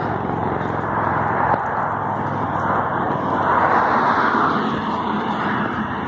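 Jet airliner passing low overhead: a steady rushing engine noise that swells to its loudest about four seconds in, then eases.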